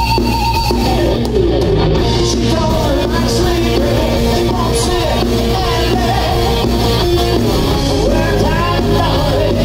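Live rock band playing loud: electric guitars, bass guitar and a drum kit with cymbal crashes, with a singer's lead vocal coming in a couple of seconds in.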